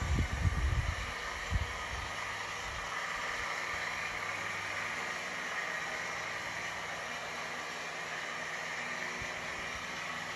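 OO-scale model trains running on the track of a helix: a steady whirring hiss of motors and wheels on rails. Low rumbling bumps come in the first couple of seconds.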